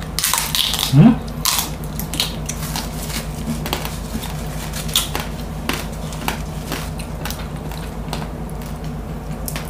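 Close-miked mukbang eating: biting into and chewing crispy roast lechon pork, with scattered crunches and clicks from the skin and meat. A short rising vocal sound comes about a second in and is the loudest moment.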